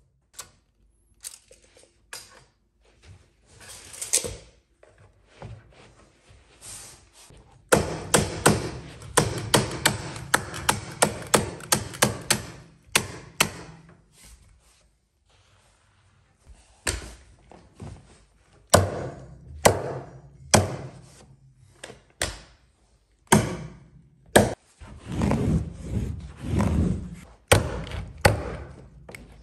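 Carpet-fitting tools at work on a runner over wooden stairs: a run of sharp knocks and taps, a fast dense stretch from about eight seconds in, then single strikes about a second apart after a short pause, and another dense cluster near the end.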